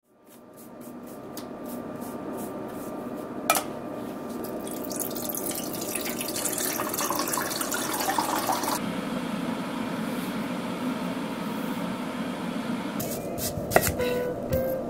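Water pouring from a container into a hammered aluminium saucepan; the splashing hiss builds from about five seconds in and stops abruptly near nine seconds. There is a single click at about three and a half seconds, and a kitchen knife knocks on a wooden chopping board near the end as an onion is cut.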